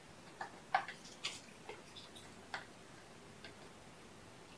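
Faint, irregular light clicks and ticks, a handful in the first three and a half seconds, from kittens moving about in a round bed.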